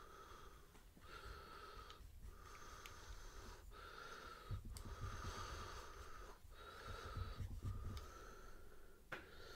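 A person breathing slowly in and out close to the microphone, each breath about a second or more long with a faint whistling tone. A few soft low bumps come in the middle part.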